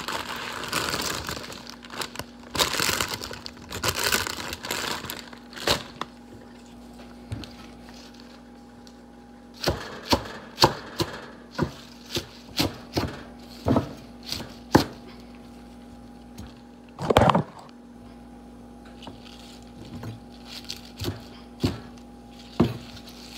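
Fresh spinach being chopped with a large knife on a wooden cutting board: rustling of the leaves being gathered for the first few seconds, then a series of short, sharp knocks of the blade on the board. A faint steady hum runs underneath.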